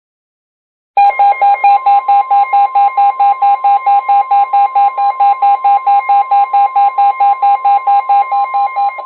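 NOAA Weather Radio's steady 1050 Hz warning alarm tone, heralding a warning broadcast, with several weather alert radios sounding their pulsing alarm beeps over it, about four or five beeps a second. Both start together about a second in, and the beeping stops near the end, leaving the steady tone alone.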